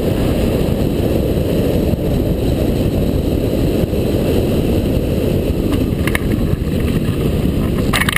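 Wind rushing over a hang glider's camera microphone in flight: a loud, steady, low rumble of airflow. A few brief clicks come near the end as the glider is brought in to land.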